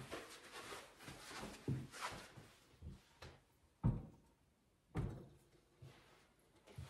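A heavy, 75-pound integrated amplifier being set down and shifted on a cabinet top: a few dull thumps and knocks, the two loudest about four and five seconds in, with lighter shuffling and handling noise between.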